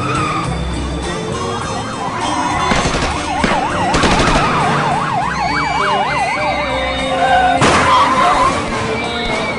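Emergency-vehicle siren in a fast yelp, its pitch going up and down about four times a second for roughly three seconds, over background music. A sudden loud noise near the end is the loudest moment.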